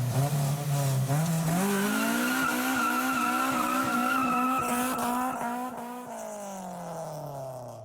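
Car engine revving up about a second in, holding higher revs, then easing off with its pitch falling from about six seconds, with a steady rushing hiss over it.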